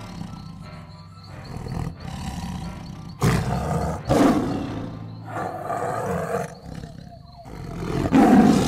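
Big-cat roar sound effects, like a tiger's, over dramatic background music. They come in sudden loud hits about three and four seconds in, then swell again near the end.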